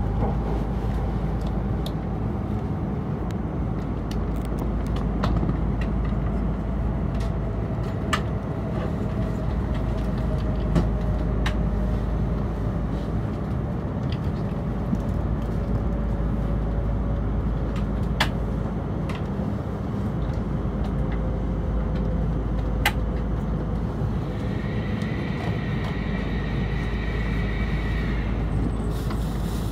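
The inside of a Hokuriku Shinkansen train as it slows into a station: a steady low rumble with a whine that slowly falls in pitch as the train decelerates, and a sharp click every few seconds. A high-pitched tone sounds for about four seconds near the end.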